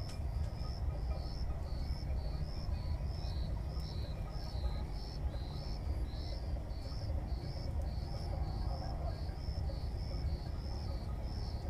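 Insect chirping in an even rhythm, about three short high chirps a second alternating between two pitches, over a steady low rumble.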